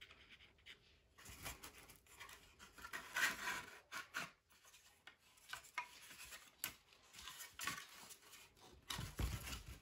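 3D-printed plastic model parts rubbing and scraping against each other as a cabin interior is pushed and worked into a model hull by hand, with a few small clicks and knocks.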